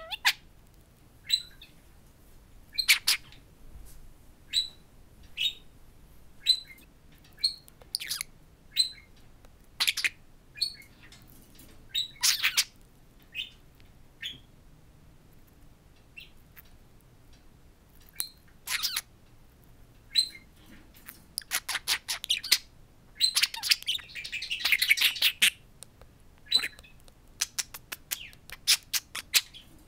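A budgerigar chirping and chattering at its reflection in a mirror: scattered short chirps and sharp clicks, with quick runs of clicks around the middle and near the end, and a louder, denser chatter about three quarters through.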